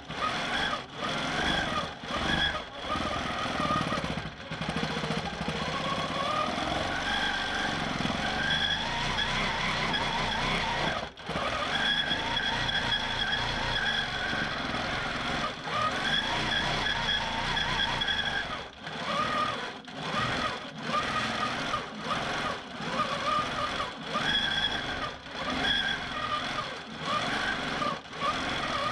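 Q'nique 19 longarm quilting machine stitching in stitch-regulated mode. The motor's pitch rises and falls as the head is moved, and it stops briefly several times.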